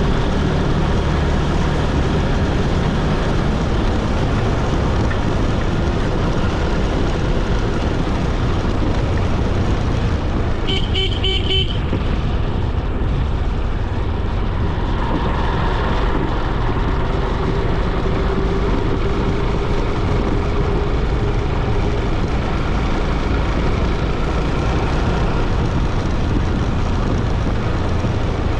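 Steady road and wind rumble of a motorbike ride. A vehicle horn toots in quick short beeps for about a second, about ten seconds in. Partway through, a faint engine note slides slowly down in pitch.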